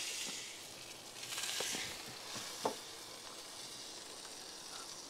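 Tomahawk ribeye steak sizzling as it sears in a very hot wood-fired pizza oven. The hiss swells about a second in, then settles, with a few faint clicks.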